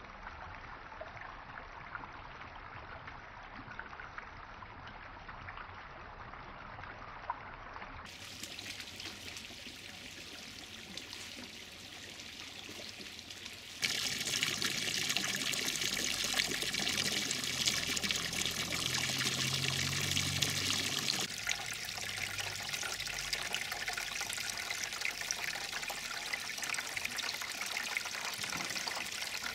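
Garden pond water features running: water trickling and pouring into the pond. About halfway through, a frog-statue fountain's jet splashes onto the water with a louder, hissing patter. Near the end a stone-bowl cascade trickles steadily.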